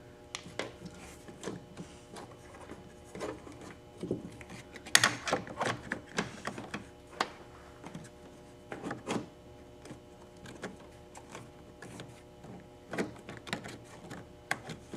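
New hard-plastic windshield cowl panel on a BMW E36 M3 sedan being handled and pressed into place over its fasteners: irregular clicks, taps and knocks of plastic against the car, the loudest about five seconds in.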